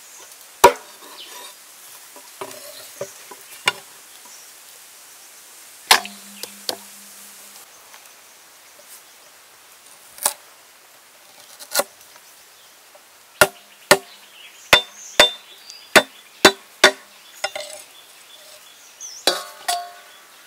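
Heavy cleaver chopping down onto a thick wooden block. First come single sharp strikes a few seconds apart, then a run of about seven quicker chops at roughly two a second, then a short cluster near the end.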